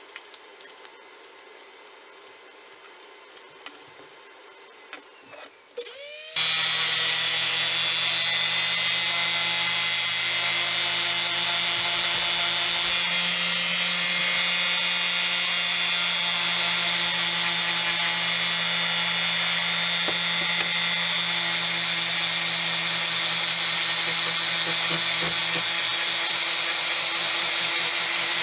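Jobmate electric palm sander switched on about six seconds in and then running steadily, a small wood piece held against its upturned sanding pad; before it starts there are only a few light handling clicks.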